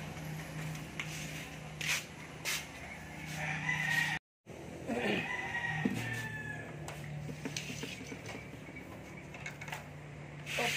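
A rooster crowing about midway, over a steady low hum, with a few sharp knocks.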